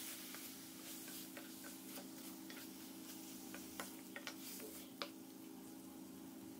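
A spatula scraping and clicking against a steel kadai as raw chicken pieces are stirred in hot oil, with scattered sharp clicks, the loudest about four and five seconds in. A faint frying sizzle runs underneath.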